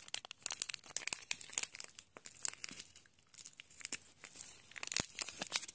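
A Morinaga Milk Cocoa stick sachet being crinkled and torn open by hand: a dense run of irregular sharp packet crackles.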